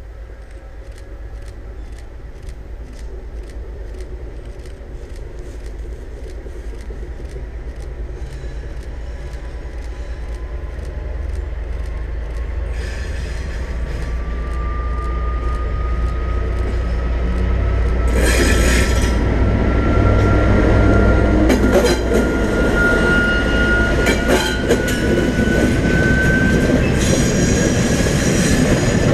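DB Class 232 'Ludmilla' diesel locomotive approaching with a train, its 16-cylinder diesel engine's deep rumble growing steadily louder. A whine slowly rises in pitch as it comes on. In the second half, wheel clatter and knocks from the wagons join in.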